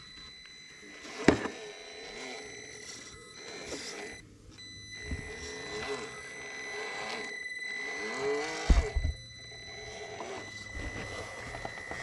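Traxxas TRX-4M RC crawler's small electric motor and geartrain whining as it crawls over rock, the pitch rising and falling with throttle over a thin steady high tone. Sharp knocks of the truck on the rocks, the loudest about a second in and another cluster near nine seconds.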